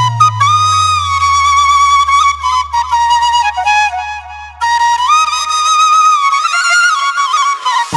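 Ringtone music: a flute-like lead melody with bending notes over a deep bass note that slides slowly downward and fades out. The melody breaks off briefly about four and a half seconds in.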